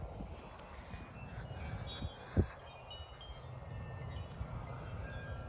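Spiral wind chime ringing rapidly in gusting storm wind: many overlapping high chimes over a low wind rumble. A single sharp thump about two and a half seconds in.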